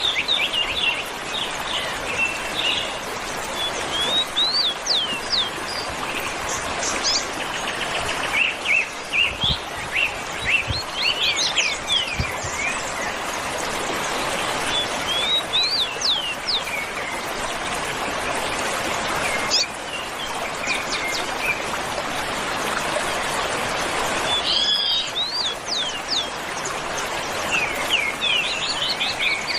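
Songbirds singing: phrases of quick chirps and sharp sweeping whistles every few seconds over a steady background hiss.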